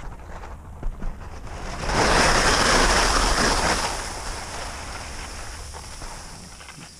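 Skis sliding and scraping on firm spring snow during a turn on a steep slope: a loud hissing wash from about two seconds in that fades away over the next few seconds. Wind noise on the microphone rumbles underneath.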